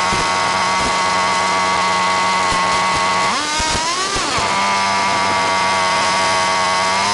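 Nitro RC car's small glow-fuel engine running at high revs with a steady, high-pitched whine, dropping off and picking back up about halfway through, then dropping off again at the end.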